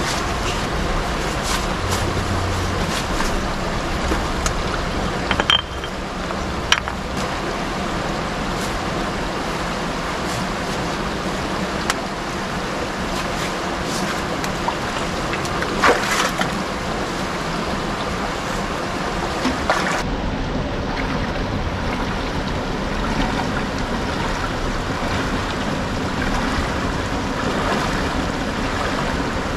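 A shallow, fast river rushing steadily over rocks, with a few short, sharp knocks scattered through it.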